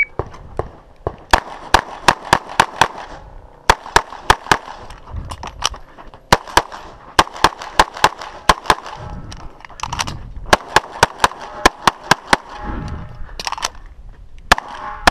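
CZ 75 SP-01 9mm pistol firing close to the microphone. Fast strings of shots come several a second, broken by short pauses of about a second.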